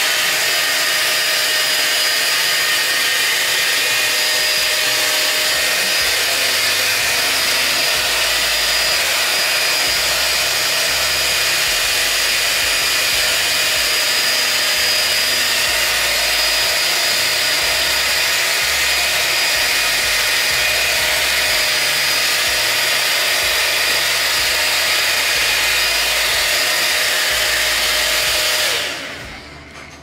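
5-in-1 hot air styler (a Dyson Airwrap copy) running steadily: a loud rush of air with a steady motor whine over it. It is switched off near the end.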